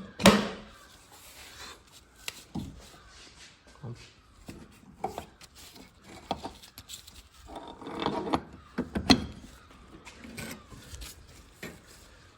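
Irregular metal clunks, clicks and scraping as a front drive shaft is worked into the gearbox and hub, with a sharp knock just after the start and a flurry of knocks about eight to nine seconds in.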